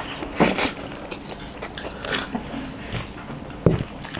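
Close mouth sounds of a person eating by hand: chewing a full mouthful of rice and chicken curry, with scattered small wet clicks and a short noisy burst about half a second in.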